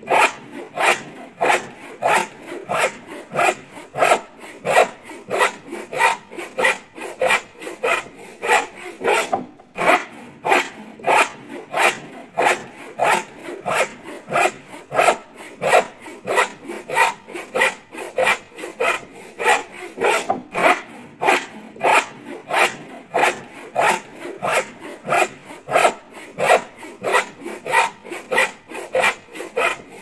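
Hand saw cutting wood in steady back-and-forth strokes, about two to three a second, with a short break about nine seconds in.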